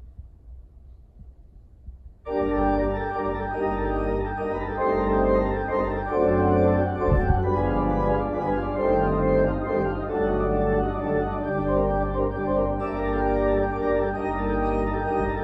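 Church organ starting to play about two seconds in: sustained full chords over a deep, steady bass line.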